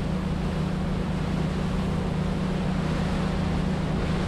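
Yamaha 425 hp V8 outboard on a rigid inflatable boat running steadily under way: an even engine drone under a broad rush of wind and water noise.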